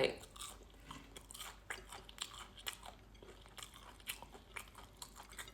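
A person chewing crunchy food close to the microphone: a steady run of small, irregular crunches, several a second.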